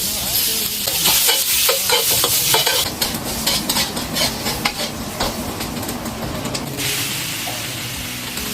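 Food hitting a hot oiled pan and sizzling loudly from the first instant, with a spatula scraping and stirring it in quick strokes over the first few seconds. The frying then settles into a steady sizzle that swells again near the end.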